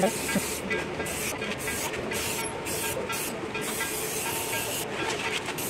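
Aerosol spray-paint can spraying in a run of short hissing bursts, each about half a second, with one longer burst of over a second near the end.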